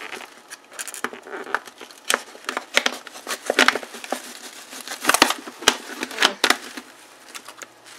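Clear plastic wrapping around a bottle crinkling and crackling as it is handled and cut open, in many short, irregular crackles.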